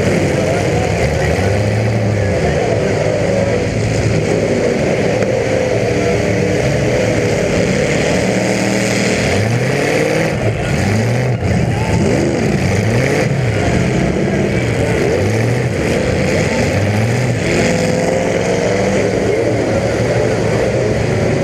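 Several demolition derby car engines revving hard at once, their overlapping pitches rising and falling again and again, loud and continuous.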